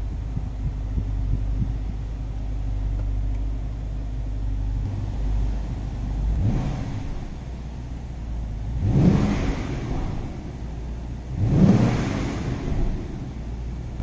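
2016 BMW X5 50i's twin-turbo 4.4-litre V8 idling in Park, heard from inside the cabin. It is given three short throttle blips, each rising and falling back to idle: a small one about halfway through, then two stronger ones a couple of seconds apart.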